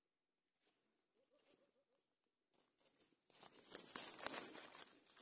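Dead leaf litter rustling and crackling close to the microphone, starting about three seconds in as the forest floor is handled, over a faint steady high insect whine.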